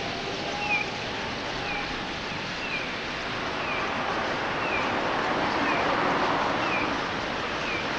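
Flock of white-cheeked starlings chattering, heard as a dense hiss that grows louder after about four seconds. Over it, one bird gives a short falling chirp about once a second.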